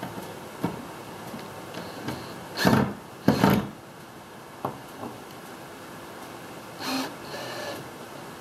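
DeWalt cordless drill driving screws through a door hinge into plywood, in two short runs about three seconds in and a shorter one about seven seconds in, with a few light clicks between.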